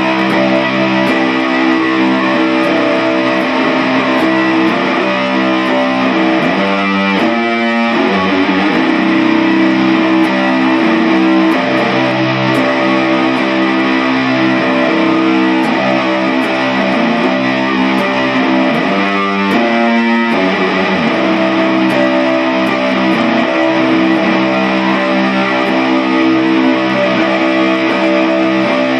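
Loud music led by a distorted electric guitar playing sustained chords, picked up by a phone's microphone. Twice, about seven and twenty seconds in, the sound briefly sweeps.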